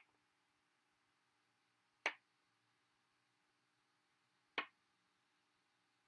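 Checker pieces set down on the board with short sharp clicks, two clear ones about two and a half seconds apart.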